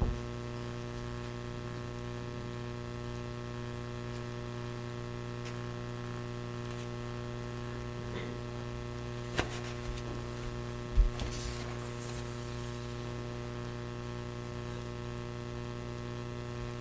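Steady electrical mains hum with a faint buzz, heard in the pause of the sermon recording. A couple of small clicks come about nine and a half seconds in, and a short sharp knock about eleven seconds in.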